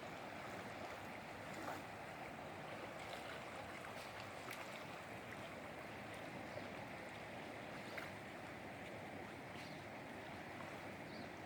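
River water running steadily, with a few small sharp ticks here and there.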